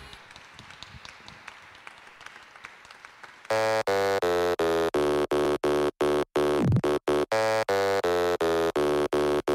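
Faint stage room sound, then about three and a half seconds in electronic dance music starts: a buzzy synth chord chopped into rapid stutters, about three a second, with one falling sweep midway.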